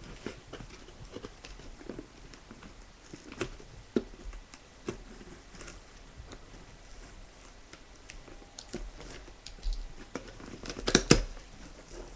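Packaging being handled and opened: irregular scratching, rustling and small knocks and clicks, with a louder clatter about eleven seconds in.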